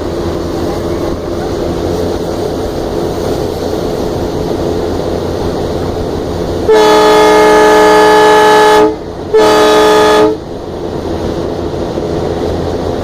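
Diesel locomotive running, heard from on board. About seven seconds in, its horn sounds twice: a blast of about two seconds, then a shorter one of about a second after a brief gap. The horn blasts are the loudest sound.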